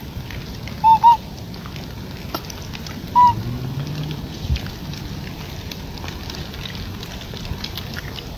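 Macaque calls: three short calls that rise and fall in pitch, two in quick succession about a second in and a third about three seconds in.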